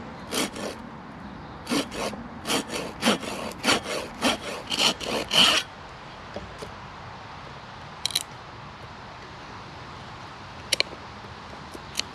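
Hand saw cutting into a wooden log with quick back-and-forth strokes, about three a second, stopping after roughly five seconds; the cut starts an opening in the log for a hobo stove. A few light clicks follow later.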